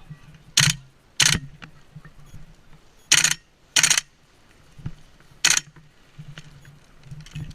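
Airsoft rifle firing five short, sharp bursts: two about half a second apart near the start, two more about three seconds in, and a last one at about five and a half seconds.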